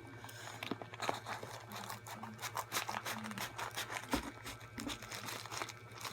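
Plastic packaging crinkling and rustling in irregular little crackles as a package is opened by hand, with a dull thump about four seconds in.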